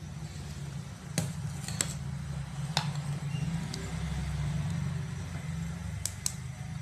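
Rice parboiling in a large stainless steel pot of boiling water on a gas burner, giving a steady low rumble, while a long spoon stirs it. The spoon knocks sharply against the pot about six times.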